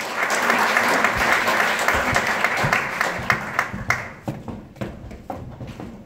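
Audience applauding, dense at first, then thinning out after about four seconds into a few scattered claps.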